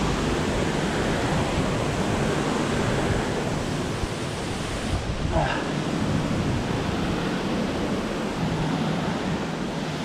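Rushing water of a rocky mountain river and its waterfall cascades, a steady, even rush of noise.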